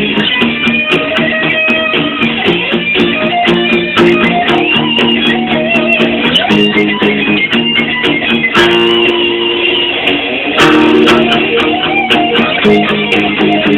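Guitar playing the rhythm part of a heavy metal song, steady chugging notes and held chords.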